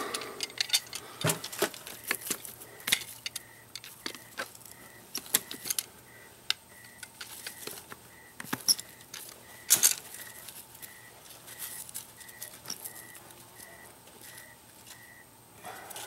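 Scattered light clicks and clinks of plastic sprinkler valve parts being handled and worked loose by hand, with pliers close by; a couple of sharper knocks stand out about a second in and near the middle.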